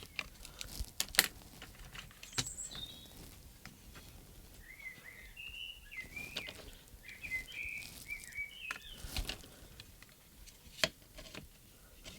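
Scattered small clicks and taps from handling the plastic case of a RadioMaster Zorro radio transmitter during reassembly, with a bird chirping repeatedly in the middle.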